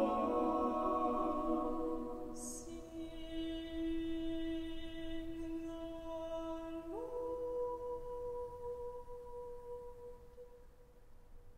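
Chamber choir singing a cappella: a full chord dies away in the church's reverberation in the first two seconds, with a brief hiss just after. A low note is held on, and about seven seconds in a higher note, reached with a short upward slide, is held and fades out toward the end.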